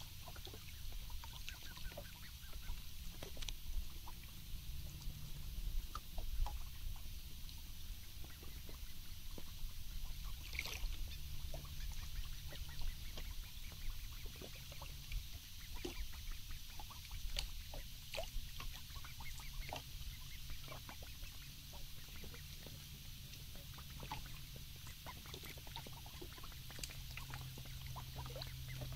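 Mallard ducks feeding among rocks in shallow water, giving short soft calls and small splashing and dabbling sounds, a scatter of brief clicks over a steady low background rumble.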